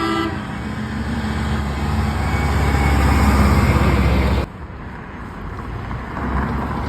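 A truck horn cuts off just as it begins, then a truck passes close by, its engine rumble and road noise building for about four seconds before dropping away abruptly, leaving quieter traffic noise.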